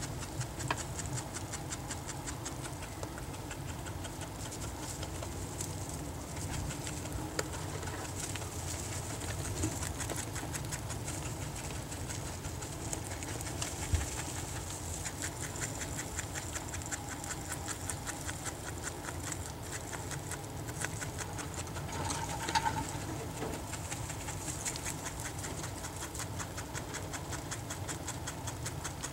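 Outdoor yard ambience with doves cooing and other birds calling in the background. A steady, busy hiss of rapid tiny ticks runs underneath, and a single short bird call comes near the end.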